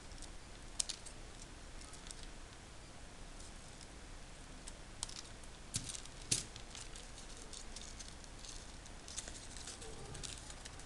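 Scissors snipping crepe paper, with the paper rustling and small clicks as it is cut and handled; a few sharper clicks stand out around the middle.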